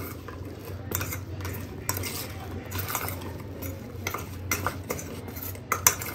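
A spoon clinking and scraping against a bowl in quick, irregular strokes as boiled soya chunks are mashed and mixed into a thick spiced marinade.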